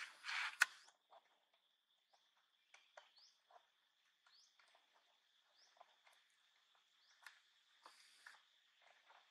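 Faint outdoor ambience: a steady high-pitched insect drone with a few short rising bird chirps and scattered light clicks. In the first second there is a brief louder rustle that ends in a sharp click, as macaques move across dry ground.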